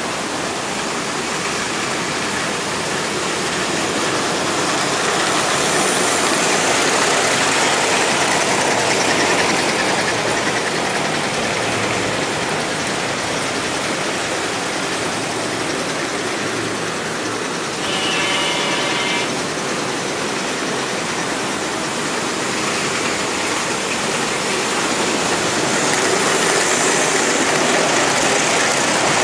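S-gauge model trains running on the layout's track: a steady running noise of motors and wheels on the rails, louder a quarter of the way in and again near the end as a train passes close. About two-thirds of the way through, a short tone with several pitches sounds for about a second and a half.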